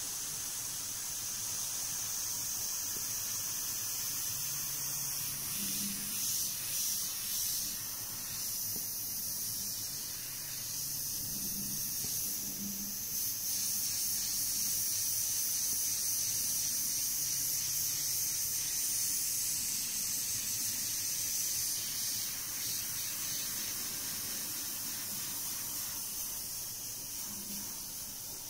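Gravity-feed airbrush hissing steadily as compressed air sprays paint from its nozzle.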